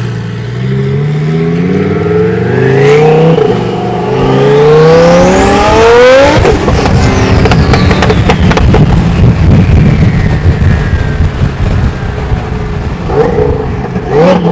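Twin-turbo supercar engine at full throttle, its pitch climbing for about six seconds. Then it lifts off about six seconds in into a stretch of rapid crackling and popping, with a slowly falling whistle, and gives a short rev near the end.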